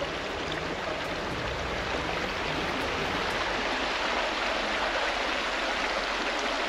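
Shallow rocky river flowing over stones: a steady rush of running water.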